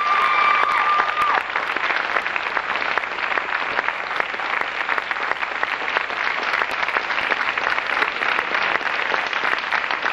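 Theatre audience applauding steadily, with a high held tone over the clapping during roughly the first second and a half.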